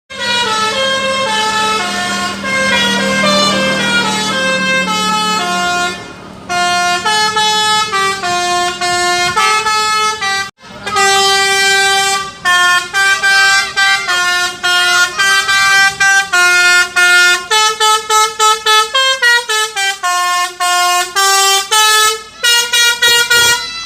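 Basuri telolet horn, a multi-trumpet musical vehicle horn, playing a fast tune of separate held and quick notes, breaking off briefly twice before carrying on.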